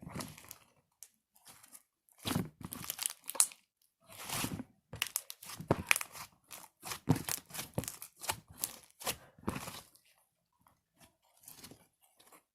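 Slime being kneaded and stretched by hand, giving irregular bursts of crackling and popping, with a quiet pause near the end.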